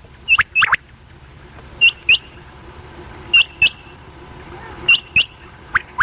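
Female quail calling: short, sharp notes given in pairs, each note sweeping quickly upward. A pair comes about every one and a half seconds, five pairs in all.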